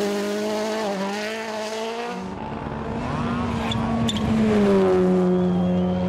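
Rally car engines held at high revs, a steady hard-driven note, with an abrupt change to a different car's note about two seconds in. There are a couple of short sharp cracks around four seconds in.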